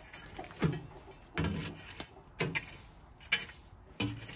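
A steel shovel scraping and scooping through embers and ash on the ground, about five strokes roughly a second apart.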